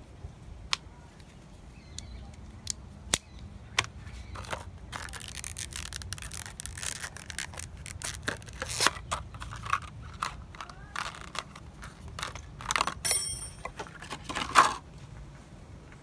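A few sharp clicks from a multitool's metal pliers and blades being handled, then a long run of crinkling and crackling from a clear plastic blister pack being handled and worked open, loudest near the end.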